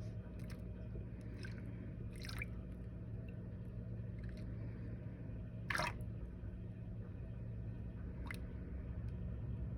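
Scattered water drips, about five short ones, the loudest about six seconds in, over a steady low hum.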